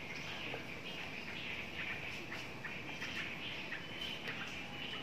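Birds chirping and calling in a steady outdoor chorus, with many short chirps.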